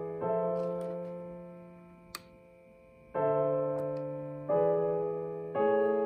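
Background music of slow electric piano chords, a new chord struck every one to three seconds and each ringing out and fading. A single sharp click comes about two seconds in.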